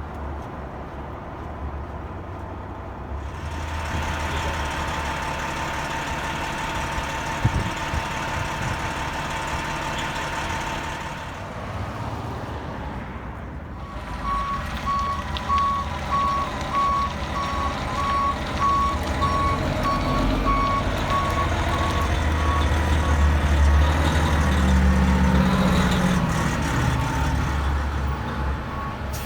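A heavy truck's engine running, with a backup alarm beeping at an even, steady pace from about halfway through while the engine works harder near the end: a large vehicle reversing.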